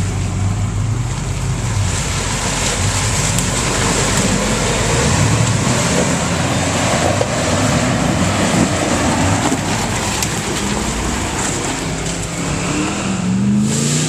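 Off-road 4x4 truck engine running under load over a steady rush of tyre and driving noise, revving up in the last few seconds.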